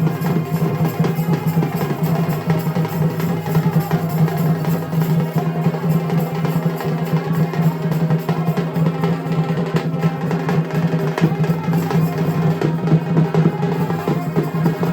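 Music with fast, continuous drumming and drum rolls over a steady sustained low tone.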